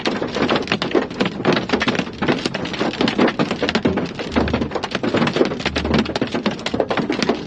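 Heavy rain striking the car's windshield and roof in a dense, irregular tapping.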